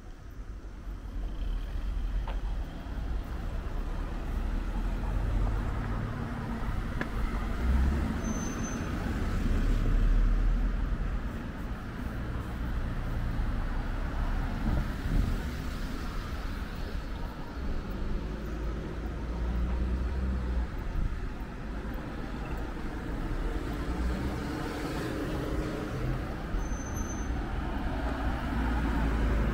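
Street traffic: motor vehicles running and passing, their engine rumble swelling and fading. Two short high squeaks stand out, one about eight seconds in and one near the end.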